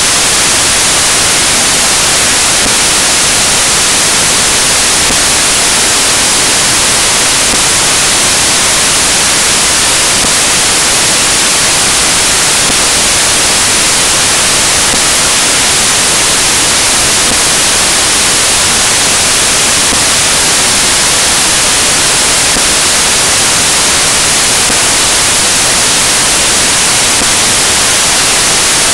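Loud, unchanging static hiss, even like white noise, with nothing else heard through it.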